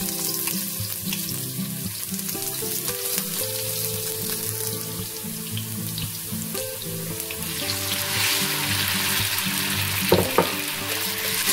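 Minced garlic sizzling in hot oil in a wok as chopsticks stir it. The sizzle grows louder after the marinated beef slices go in, and there are two sharp clicks near the end.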